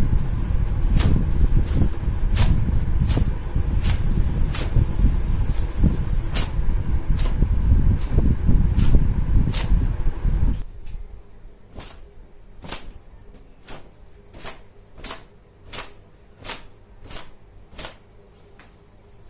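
Wet hair being towel-dried: a low rubbing rumble that stops just over halfway, with sharp slaps of the towel against the hair about every 0.7 s, coming faster, about twice a second, after the rubbing stops.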